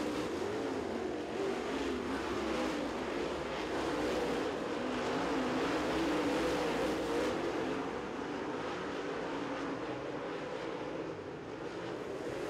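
Several dirt super late model race cars running laps at speed, their V8 engines blending into a wavering drone whose pitch rises and falls as the cars go around the track.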